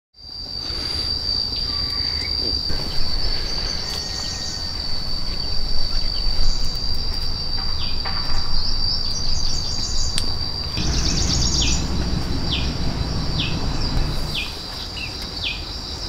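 Steady high-pitched drone of insects in a garden. In the second half, short falling chirps repeat about once a second over the drone.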